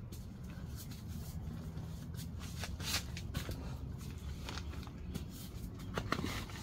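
A deflated Mr. Young air mattress being rolled up and pressed down by hand, its plastic skin crinkling and rustling with many scattered crackles as the last air is squeezed out toward the valve.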